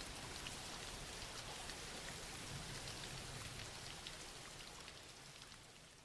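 Soft, steady rain: an even hiss with scattered drop ticks, gradually fading out over the last two seconds.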